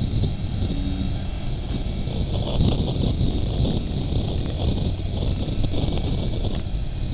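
Four turbofan engines of a C-17 Globemaster III running steadily during its takeoff run, heard at a distance as a steady low rumble.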